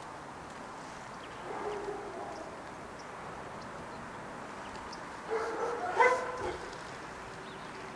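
A dog barking and yelping: a short call about one and a half seconds in, then a louder run of yelps from about five to six and a half seconds in, over a steady background hiss.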